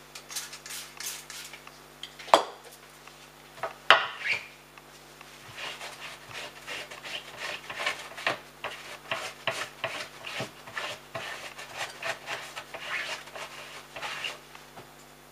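Two sharp knocks early on, then a wood-mounted rubber stamp's inked rubber face being wiped clean with a fuzzy cloth: a fast run of short rubbing strokes, several a second.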